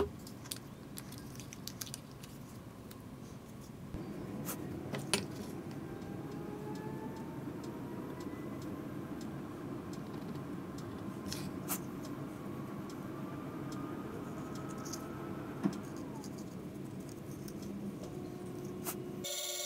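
Workbench handling: a sharp click as a quick-grip bar clamp is released at the very start, then a few light clicks and taps as the wooden pieces and a pencil are handled. A steady low hum comes in about four seconds in.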